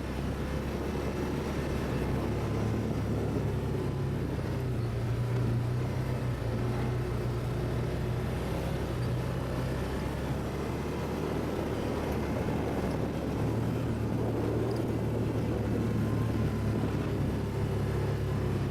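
ATV engine running steadily at a constant pace, its low hum dipping a little in the middle and picking back up.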